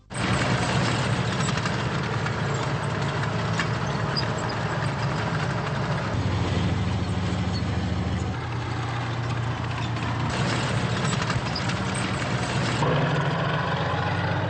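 Tank engine running with the clatter of its tracks, a steady low engine note under a rattling noise. The sound starts abruptly, and the engine note shifts about eight seconds in.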